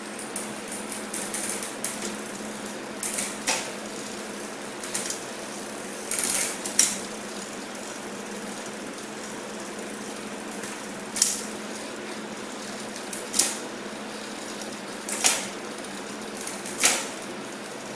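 1974 Schwinn Sprint ten-speed drivetrain turned by hand on a stand: chain running steadily over the chainrings, freewheel and rear derailleur, with about nine sharp clanks as the chain is shifted across the gears.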